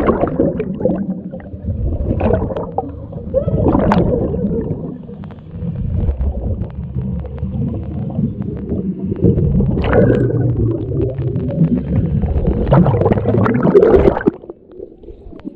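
Muffled underwater rumbling and gurgling of a scuba diver's exhaled air bubbles from the regulator, swelling in bursts every few seconds and cutting off abruptly about fourteen seconds in.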